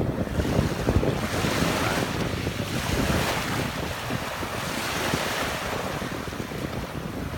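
Mediterranean surf breaking and washing over a pebble beach, the hiss swelling and falling every couple of seconds, with wind buffeting the microphone.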